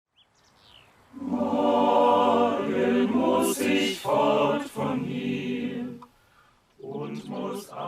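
A choir singing unaccompanied, starting about a second in, breaking off about six seconds in and coming back in shortly before the end.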